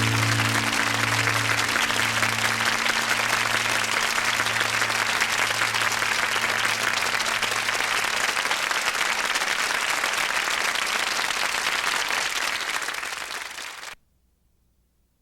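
Studio audience applauding as the song's last low chord rings out underneath and dies away. The applause fades out and cuts to near silence about a second before the end.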